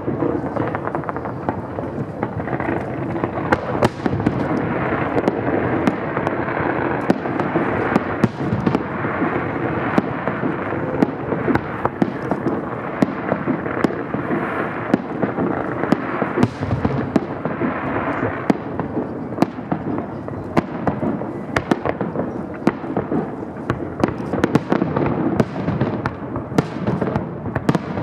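Fireworks display in a dense barrage: a continuous rumble of bursts, with many sharp bangs and crackles coming in quick succession.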